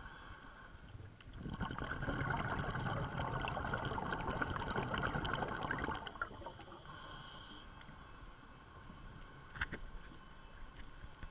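Underwater sound through a camera housing: a faint steady hiss, with a burst of bubbling and crackling from about a second and a half in that lasts some four seconds. A single sharp click near the end.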